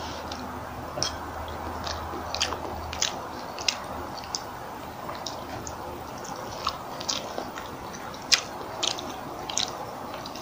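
A person eating rice close to the microphone: chewing with irregular soft mouth clicks and smacks, about two a second. A low hum underneath stops about three seconds in.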